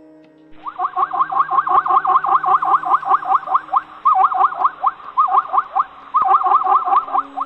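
A bird calling in a fast, loud run of repeated rising-and-falling notes, about four a second, starting about half a second in and broken by brief pauses around the middle.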